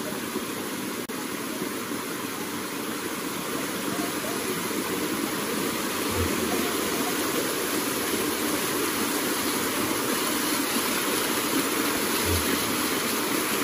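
Small waterfall pouring and splashing steadily over rocks into a shallow pool, a constant rush of water that grows slightly louder.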